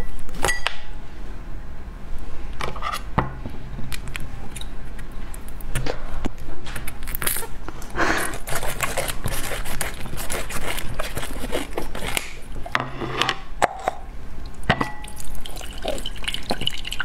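A plastic cola bottle being handled and cut open with scissors, with irregular crackles, snips and clicks of the plastic. Near the end, liquid drips into a glass bowl.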